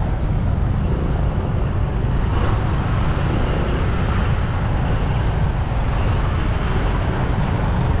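Steady traffic noise from motorbikes and cars in slow, jammed traffic, with a heavy low rumble.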